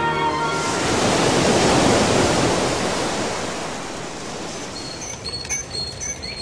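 Surf breaking: a rush of sea noise that swells about a second in and fades away over the next few seconds. Short high bird chirps follow near the end.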